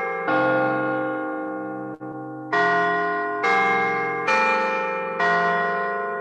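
Church bells ringing a slow sequence of single strokes at changing pitches, about one a second after a longer gap near the start, each stroke ringing on and fading before the next.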